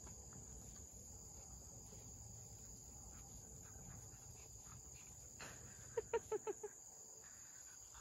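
Steady high trill of a field cricket and insect chorus. About five and a half seconds in there is a sharp knock, and just after it five quick, short pitched sounds in a row.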